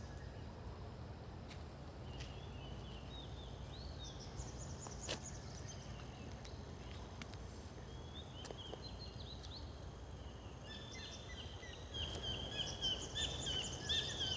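Small birds chirping in short repeated calls over a steady low outdoor rumble; the chirping turns busier and louder near the end.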